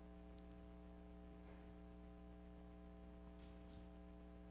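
Near silence: a steady low electrical hum on the sound system, with a couple of very faint soft rustles.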